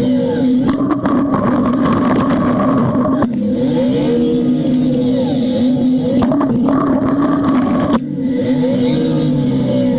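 John Deere backhoe's diesel engine running under load while pushing snow with a blade. Its note shifts abruptly every few seconds as the throttle and load change.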